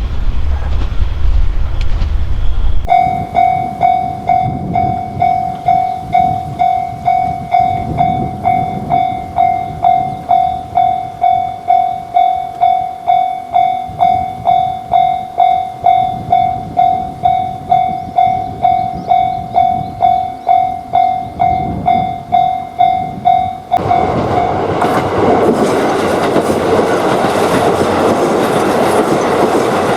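Japanese railroad crossing bell ringing its "kan-kan" warning at a steady rate of about two strikes a second. About 24 seconds in, it gives way to the loud rumble and clatter of a train passing over the crossing.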